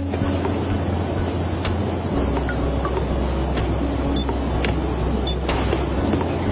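Steady low machinery rumble of a warehouse packing area, with scattered light clicks.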